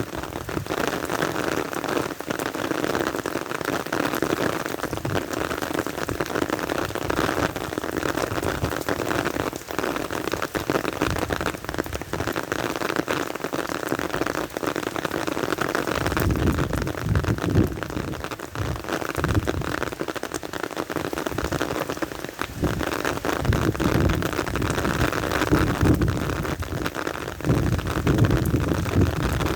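Heavy rain drumming on an umbrella canopy, a dense steady patter of drops. From about halfway through, strong gusting wind adds an uneven low rumble.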